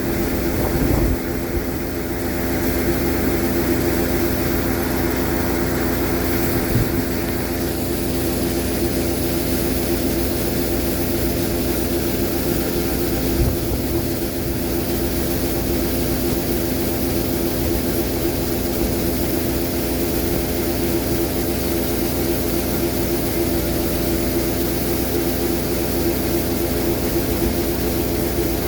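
Large diesel machinery running at a steady speed: a constant drone with a steady hum, broken only by a few faint knocks.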